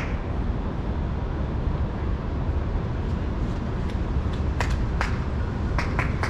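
Steady low city rumble of a street, with a few sharp footstep clicks on the pavement late on.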